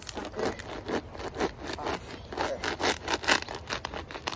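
Knife sawing through the dry brown shield fronds and root mass at the base of a staghorn fern, a fast run of short rasping strokes, several a second.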